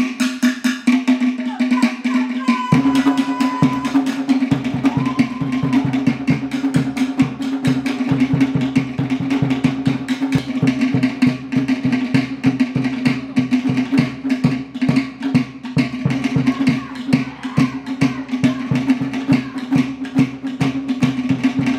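Tahitian drum music: a fast, even drumbeat of hand-struck percussion, accompanying dance practice.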